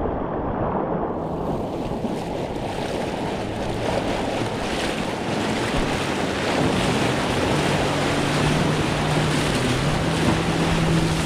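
Wind buffeting the microphone over rushing water while riding a towed tube. A watercraft engine runs low and steady through the second half, rising a step in pitch about ten seconds in.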